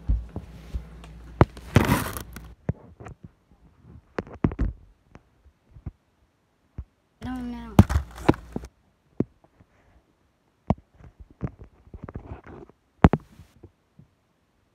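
Handling noise from a hand-held phone being moved and repositioned: scattered clicks, taps and knocks with a louder rustle about two seconds in, and a short pitched sound with a wavering, rising pitch a little past halfway.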